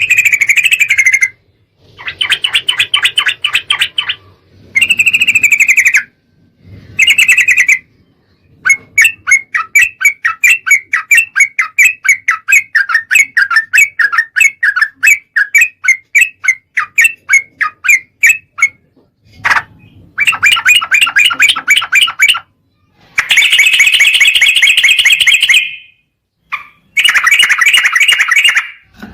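Yellow-vented bulbul (trucukan) song played loud as a lure recording: short bubbly chattering phrases of one to three seconds, broken by brief pauses, with a long run of quick repeated notes, about four a second, for some ten seconds in the middle.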